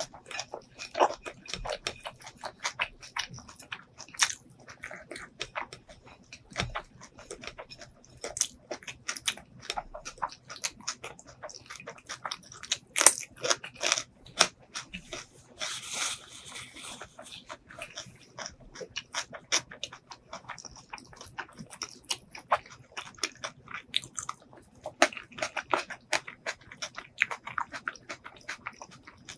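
Close-miked human chewing: a dense stream of wet mouth clicks and small crunches, with a short hissing burst about halfway through.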